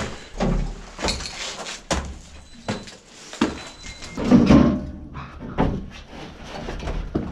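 Footsteps of sneakers climbing steep steps, with scuffs, knocks and irregular thunks, and one louder thump about four and a half seconds in.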